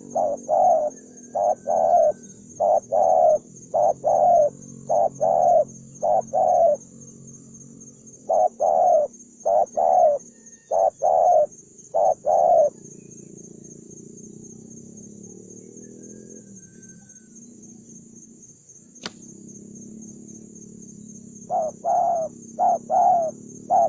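Spotted dove cooing: runs of short, repeated coo notes, falling silent for about nine seconds in the middle and starting again near the end. A low steady hum lies underneath, with a single sharp click during the pause.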